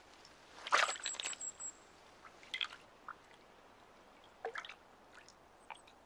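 A beaver feeding in icy water: scattered short, faint wet splashes, drips and crunches, with a cluster about a second in and single ones later.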